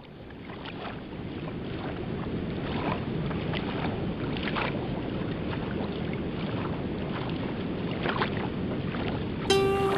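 Small waves lapping on a sandy beach, with a steady rush of wind on the microphone. The sound fades in at the start, and music begins near the end.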